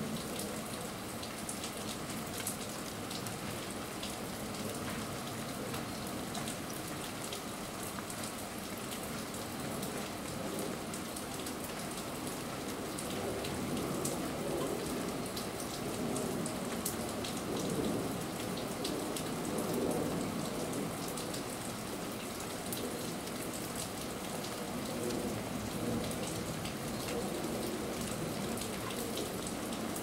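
A steady pattering noise like light rain, with many faint, irregular ticks scattered through it. It swells somewhat in the middle.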